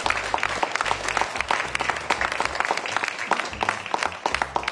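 Audience applauding: many people clapping at once in a dense, irregular patter.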